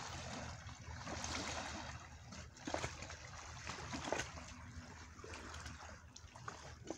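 Small waves lapping and splashing against a river shoreline, with a few louder slaps of water near the middle.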